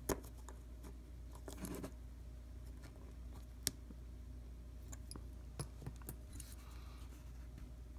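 Faint, scattered small metallic clicks and ticks as a screwdriver, coil jig and rebuildable atomizer deck are handled. The sharpest click comes near the middle, over a steady low hum.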